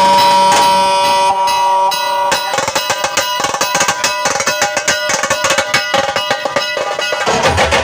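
Brass band with dhol-tasha drums playing a train imitation: a held horn chord for about two seconds, then fast, even drum strokes like wheels on rails.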